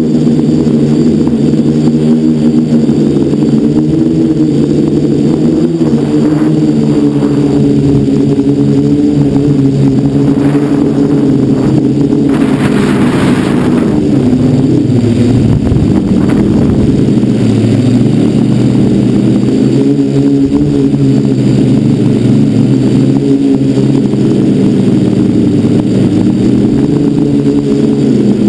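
Electric motors and propellers of an FPV quadcopter, recorded by its onboard camera, humming steadily with the pitch shifting as the throttle changes. A burst of wind rush about twelve to fourteen seconds in.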